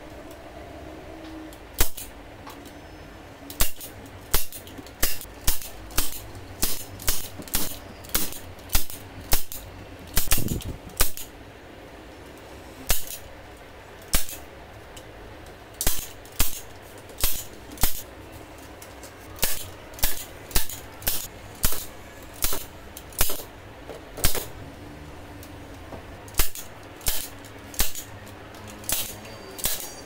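Manual staple gun firing staples through wire mesh into a wooden frame: about thirty sharp clacks at an uneven pace, roughly one a second. A longer, duller rattle comes about ten seconds in.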